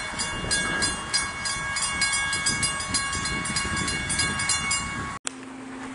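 Railroad grade-crossing bell ringing rapidly as the crossing gates rise after the train has passed, over a low rumble. It cuts off sharply about five seconds in.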